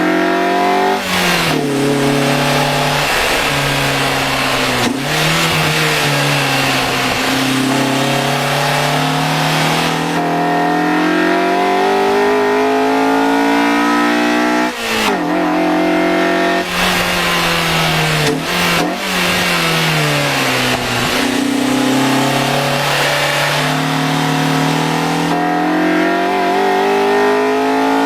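Honda Accord Euro R engine pulling up through the revs and easing off in turn. Its pitch drops sharply several times, as at gear changes.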